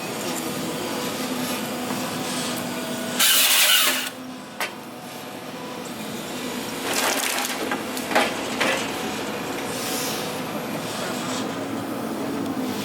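Forestry harvester processing a tree: its engine runs steadily while the head feeds the stem through and cuts it into 4 m logs. About three seconds in comes a loud burst, under a second long, as the head's chainsaw cuts through the stem, followed by a sharp knock and later short cracks of wood and branches.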